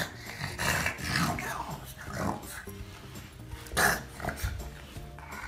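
A Boston terrier making a few short, irregular vocal sounds, the loudest nearly four seconds in, over steady background music.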